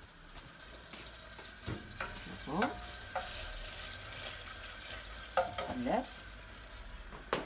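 Sugar syrup bubbling and sizzling on the gas in a stainless steel pot while a wooden spoon stirs it, with a few light clicks. Two short rising squeaks come about two and a half and six seconds in.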